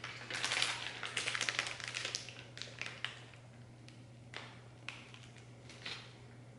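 Plastic zip-top bag crinkling as it is picked up and squeezed to pipe ricotta filling: a dense run of crackles for about the first two seconds, then a few separate short rustles.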